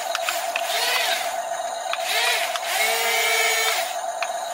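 Small electric gear motors of a toy RC excavator whining as they speed up and slow down, three times, over a steady high hum, with a few light clicks.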